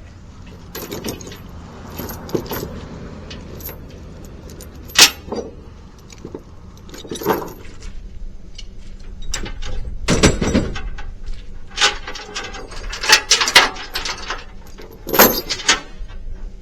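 Tie-down chains rattling and clanking against metal, with irregular sharp knocks, as the chains holding a skid steer to a trailer are released for unloading. The loudest clank comes about five seconds in, and a busy run of rattles follows near the end.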